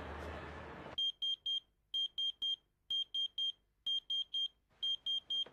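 Motorola pager beeping its alert: five sets of three short, high, steady beeps, about one set a second, starting about a second in.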